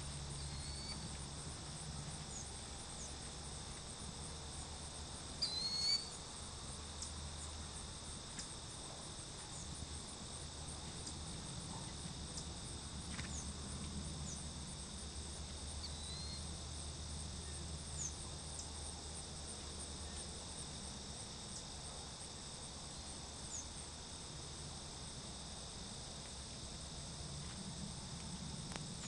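Steady high-pitched chorus of insects chirping outdoors, with a few short chirps on top and one louder chirp about five and a half seconds in.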